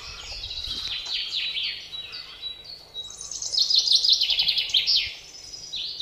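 Small songbirds singing: a string of high, short falling notes, then a fast trill about halfway through and another starting near the end.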